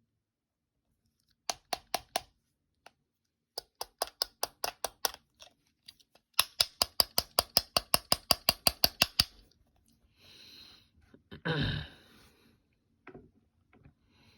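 A pen tapping rapidly on an iPhone 6s: sharp clicks in three runs, the last and loudest about seven a second for some three seconds. Then a short rustle and a heavier bump of the phone being handled, and a couple of last taps near the end.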